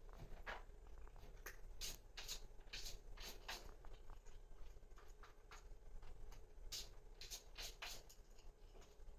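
Cat scratching and digging in a litter box, a faint run of irregular short scraping strokes of litter.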